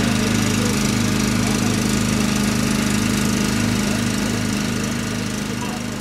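Engine idling steadily with an even, rhythmic throb, gradually fading over the last two seconds.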